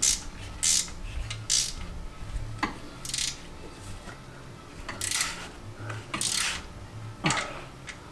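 Hand tools clinking and clanking on the steel of a Toyota 4Runner's rear axle housing while the axle's retaining bolts are being worked on: about eight separate sharp metallic clicks and short rasps, spread out, over a faint low hum.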